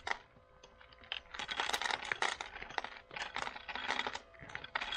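Dry cat food kibble clattering into a bowl: quick bursts of many small sharp clicks.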